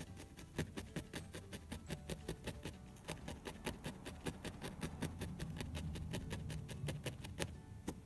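Felting needle stabbing repeatedly through wool into the felting mat: a quick run of sharp ticks, about five a second, that stops shortly before the end.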